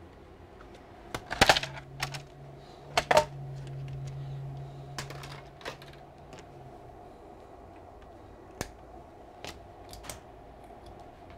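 A laptop being closed and handled on a workbench: sharp clicks and knocks, the loudest two about a second and a half and three seconds in. A low steady hum runs for about five seconds after the first knock. Later come a few light, scattered taps.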